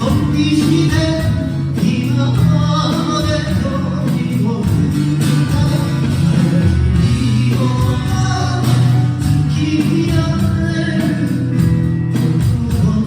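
Live band music: guitar accompaniment under a slow melody, with singing.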